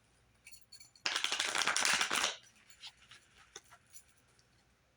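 Tarot cards being shuffled: a quick, dense flurry of card clicks lasting just over a second, followed by a few light ticks as the cards are handled.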